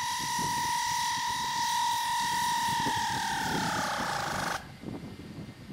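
Steady high-pitched whine of a spinning machine that starts to slow about three seconds in, falling in pitch, then cuts off abruptly.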